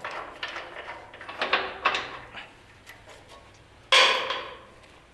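Hand tools working a nut on a steel bolt of a trailer's turntable ring: a run of small metal clicks and scrapes, then one loud metallic clunk against the steel frame about four seconds in.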